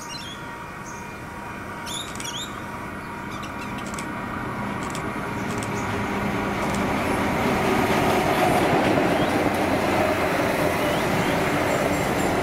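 3000 class railcar approaching along the track and running past the platform. Its engine and wheel noise grows steadily louder, peaking about eight seconds in. A steady ringing of several high tones sounds behind it.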